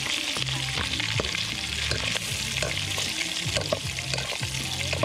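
Bacon sizzling steadily in hot fat in a black pot, with metal tongs clicking and scraping against the pot as the strips are turned.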